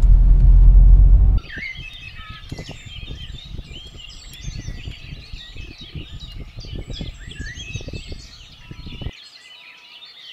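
Car engine and road rumble heard inside the cabin for about the first second and a half, then a sudden change to a dawn chorus of many small songbirds chirping and warbling at once. A low rumble lies under the birdsong and cuts off suddenly shortly before the end.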